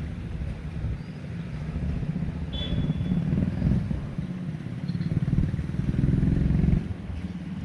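A motor vehicle engine running close by, a low rumble that swells and then drops sharply about seven seconds in.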